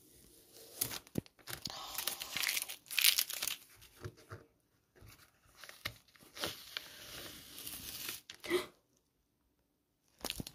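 Masking tape being peeled off drawing paper, a crackling, tearing rasp in two long pulls with pauses between.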